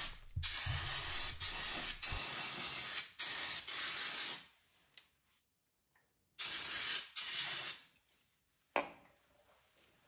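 Aerosol can of brake cleaner spraying in a run of short hissing bursts for about four seconds, then two more bursts after a short pause. A single sharp click comes near the end.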